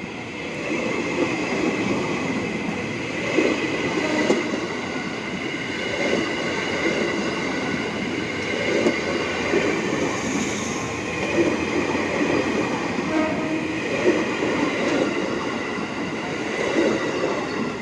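JR 205 series electric commuter train (KRL) running past close by at speed: a steady rumble of steel wheels on the rails, with a thin high steady tone above it and louder clacks every second or two.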